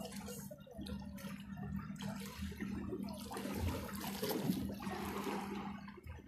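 Water splashing and sloshing as a swimmer swims breaststroke through shallow sea water, loudest from about two to five seconds in, over a steady low hum.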